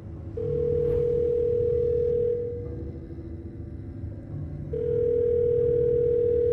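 A steady electronic tone sounds twice, about two seconds each time with a gap of about two seconds between, over a low electronic drone.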